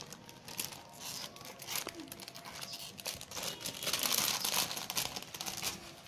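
A thin plastic Lego polybag crinkling and crackling as hands grip and pull at it to tear it open. The rustle is busiest and loudest a little past the middle.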